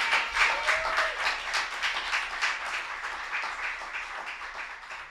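Small audience applauding, many hands clapping, fading out.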